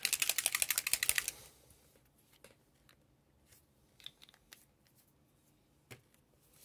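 A dropper bottle of speed paint shaken hard for just over a second, its mixing ball rattling rapidly inside, followed by a few faint light knocks as things are handled on the desk.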